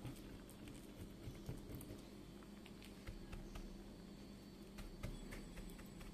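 Faint scattered light taps and clicks of a spatula and pan being handled, over a low steady hum.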